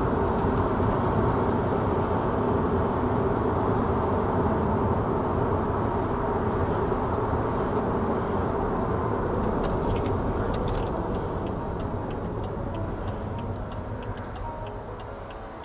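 Steady engine and road noise of a moving car, picked up inside the cabin by a dashboard camera, slowly fading toward the end. Faint, evenly spaced ticks run through the last few seconds.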